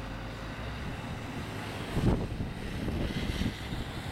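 Wind buffeting the microphone in gusts, the strongest about two seconds in and more a second later, over a low steady rumble from a distant airliner's jet engines at taxi power.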